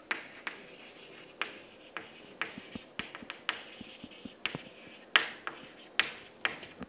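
Chalk writing on a chalkboard: an irregular run of short taps and scratchy strokes as the letters are written.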